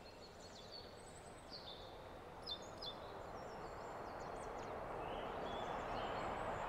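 Outdoor ambience: scattered short songbird chirps over a steady hiss of background noise that slowly grows louder toward the end.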